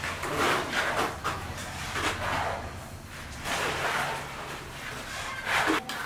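Wet concrete being scraped, scooped and tipped into foundation forms by hand: a run of rough scraping and sloshing strokes about a second apart, over a low steady hum.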